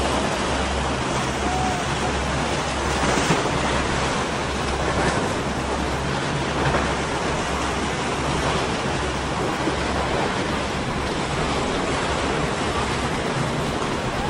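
Choppy water and the wake of a passing center-console motorboat rushing steadily, with a low engine hum underneath that comes and goes, and wind on the microphone.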